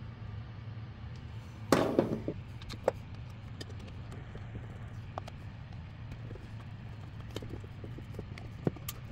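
Small clicks and taps of a hand screwdriver and a plastic switch box being fitted onto a cast drill press head, with a louder clatter about two seconds in. A steady low hum runs underneath.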